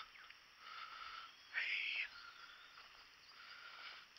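Summer woodland insects chirping faintly, with one harsh buzz lasting about half a second about a second and a half in.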